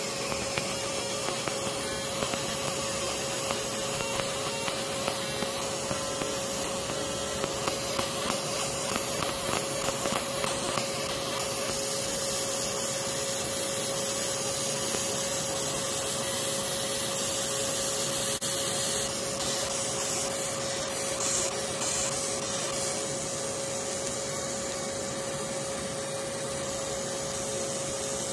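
Fiber laser engraver marking leatherette: a steady hiss with a constant tone running under it, and light crackling ticks through roughly the first ten seconds.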